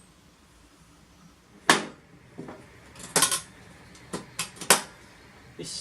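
A run of hard, clattering clinks and knocks, like metal tools or parts being handled and set down. There are about seven separate hits in the space of four seconds, and the first is the loudest.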